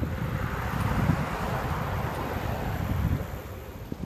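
Wind rumbling on the microphone of a phone filming from a moving bicycle, with road traffic noise. It eases off near the end.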